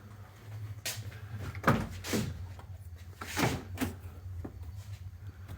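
About five scattered clunks and knocks over a steady low hum.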